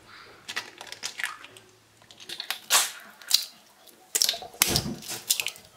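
Eggs being cracked into a ceramic bowl one after another: sharp cracks and clicks of shell, with the wet sound of egg dropping in. The loudest crack, with a dull knock, comes a little before the end.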